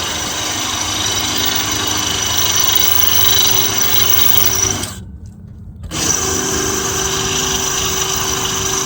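Power drill running steadily with a high whine while drilling out rivets in a bus body panel. It stops for about a second midway, then starts again.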